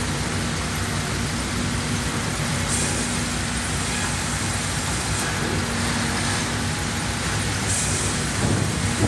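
Large sawmill headrig band saw and log carriage running as a log is fed through the blade: a loud, steady industrial din with a constant low hum beneath it.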